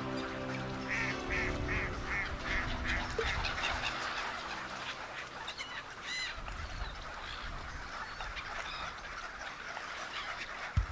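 Waterfowl calling: a quick run of about seven calls, roughly three a second, starting about a second in, then a single call about six seconds in. The tail of background music fades out in the first second.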